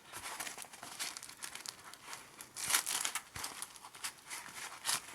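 Crinkling and rustling of small packed items being handled and pulled out of a wallet, in irregular bursts with a louder rustle about halfway through and another near the end.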